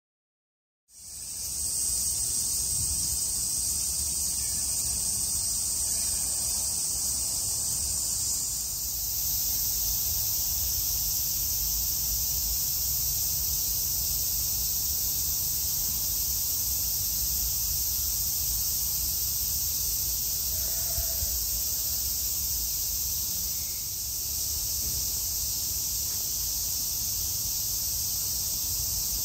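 A dense, steady, high-pitched chorus of summer cicadas, with a low rumble underneath.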